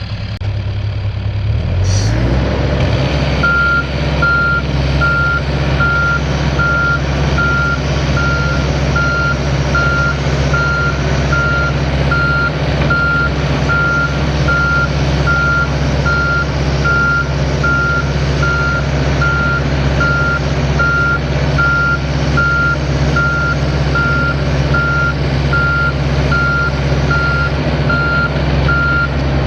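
Mini excavator diesel engines throttle up about two seconds in and then run steadily at high revs under load as the machines track into each other, blade against blade. A travel alarm beeps steadily, a little faster than once a second.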